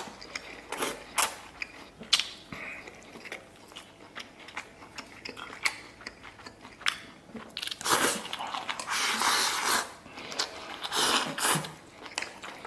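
Close-up eating sounds: a man chewing and slurping mouthfuls of shredded vegetables, pork slices and rice, with scattered sharp clicks. About eight seconds in comes a denser two-second stretch of slurping and chewing, then a few shorter bursts.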